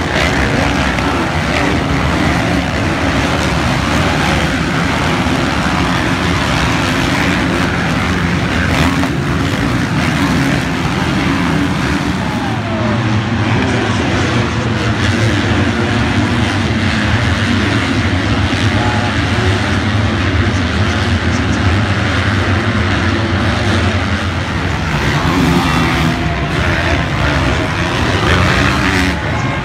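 Several motocross race bikes running hard around a dirt track, their engines overlapping and revving up and down continuously.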